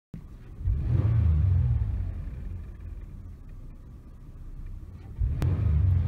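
Toyota minivan's engine idling, heard from inside the cabin as a low rumble that swells, sags away through the middle and surges back near the end, with a single click just after it returns. The van is nearly stalling, which the owner puts down to a failing alternator.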